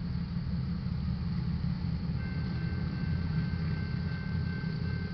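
Railroad crossing warning bell starting to ring about two seconds in, a steady high ringing over a steady low rumble: the crossing has just been activated for an approaching train.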